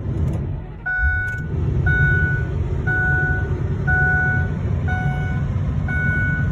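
A 2005 Ford Excursion's 6.8-litre V10 starts and idles, heard from inside the cab. A dashboard warning chime beeps six times, about once a second, over the engine.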